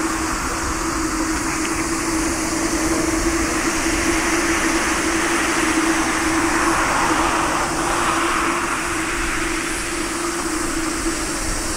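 Japan Airlines Boeing 787-8 Dreamliner's GE GEnx-1B turbofans at low taxi power as it turns onto the runway: a steady whining drone with one held tone, swelling slightly in the middle.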